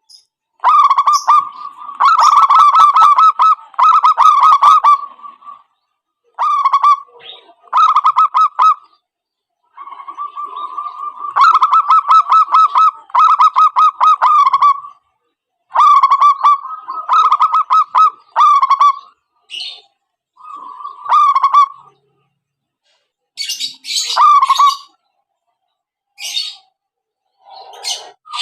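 Zebra doves (perkutut) cooing in fast staccato phrases, each a second or two long, repeated with short gaps. Several birds call over one another near the end.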